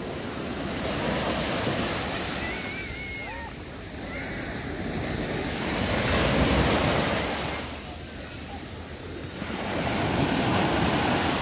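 Small surf waves washing up over sand in the shallows and draining back, the rush swelling and falling three times, about every four to five seconds.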